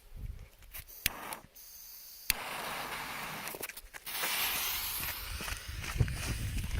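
A sharp click, then a firecracker fuse hissing and sputtering for about three seconds, louder partway through, followed by a few scattered knocks.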